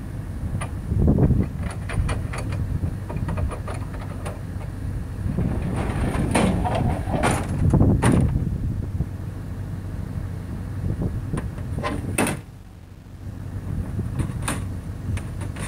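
A truck-bed loading ramp being handled and slid: scattered metal knocks, clanks and sliding or scraping noises over a steady low rumble, with the loudest stretches about a second in and from about six to eight seconds in, and a sharp knock just after twelve seconds.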